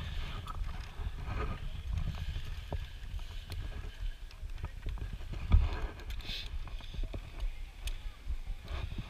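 Wind rumbling on a body-worn camera's microphone, with scattered clicks and knocks from rope-course climbing gear on steel cables and one heavier thump about halfway through.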